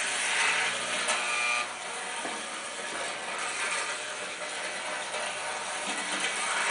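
Electric model train running on its track, a continuous mechanical clatter and whir of motor and wheels, heard through a TV speaker playing an old videotape. It gets a little quieter after about a second and a half.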